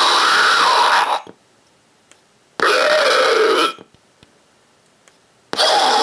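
Three zombie sound bites from an IR-XX03 laser tag sound effect board, played one after another, each set off by an infrared signal. Each lasts about one to two seconds, with pauses of about a second and a half between them.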